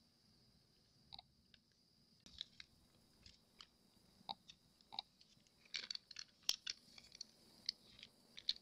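Faint crinkling and small clicks of a thin plastic zip-top bag sheet being pressed and smoothed by fingers over a silicone mould, the crackles coming more often in the second half.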